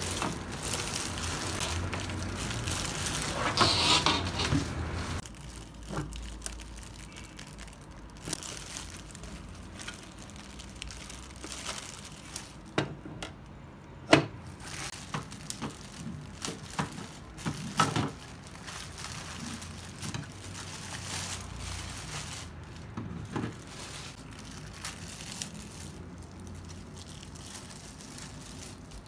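Plastic packaging wrap crinkling as it is pulled off a new blender for about five seconds. Then come scattered clacks and knocks of the hard plastic blender parts being handled, the loudest about fourteen seconds in.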